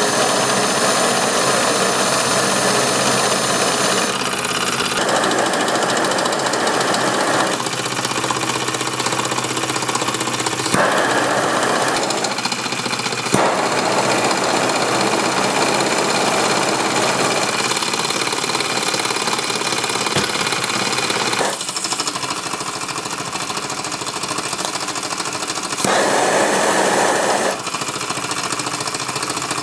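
Wilesco toy steam engine running steadily at speed, with its flywheel and string-belt-driven models turning: a continuous mechanical running noise whose tone shifts several times.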